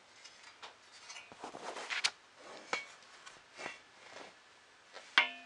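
Metal parts of a Vector 3 3D printer frame being handled and fitted together: a string of light clicks and knocks with some rustling, then a louder clink that rings briefly about five seconds in.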